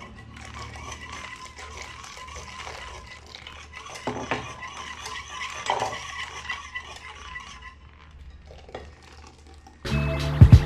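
Wire whisk beating a liquid egg and milk mixture in a glass bowl: a steady, rapid clicking of the wires against the glass. Near the end, loud background music comes in.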